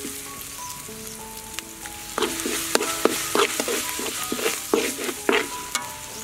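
Chopped green herb paste sizzling in a hot wok while a metal spatula stirs and scrapes it, with a run of sharp scrapes against the pan in the second half. Soft background music with held notes plays underneath.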